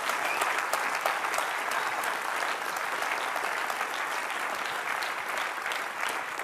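Audience in a lecture hall applauding: dense, steady clapping.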